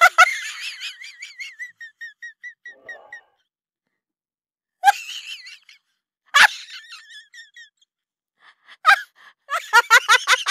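Women laughing in high-pitched, breathy bursts of rapid repeated 'ha' sounds, each trailing off: one at the start, short ones about five and six and a half seconds in, and a longer run near the end.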